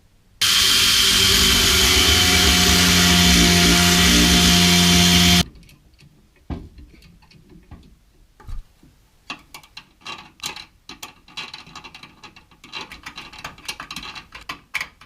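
An electric power tool runs steadily at full speed for about five seconds, starting and stopping abruptly. Then come a scatter of light clicks and knocks of hand work.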